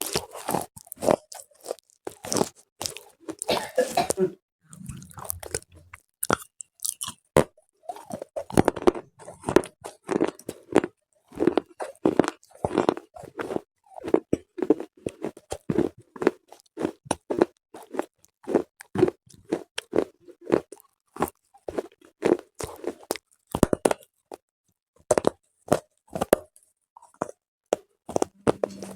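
Slate bars being bitten and chewed: a long run of sharp, brittle crunches, a few a second, with brief pauses between bites.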